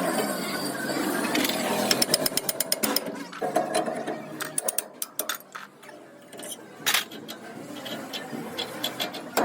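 Workshop tool noise: a burst of rapid rattling taps about two seconds in, followed by scattered sharp knocks.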